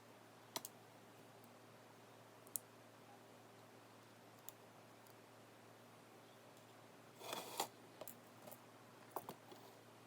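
Near silence broken by a few faint, sparse clicks of small metal lock parts and tools being handled as a Kaba 8 lock is taken apart, with a short flurry of clicks and rustling about seven seconds in.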